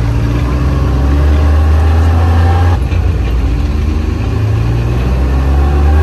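A vehicle engine running with a loud, steady low drone, its pitch shifting slightly about three seconds in.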